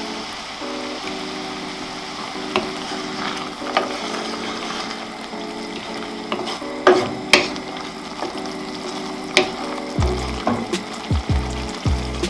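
Blended chili pepper sauce sizzling and bubbling in oil in a pan. A wooden spatula stirs it, knocking against the pan a few times.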